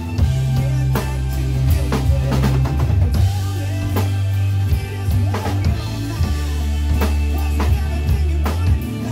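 Acoustic drum kit played along to a recorded pop-rock song: a steady pattern of kick, snare and cymbal hits over the track's sustained bass line.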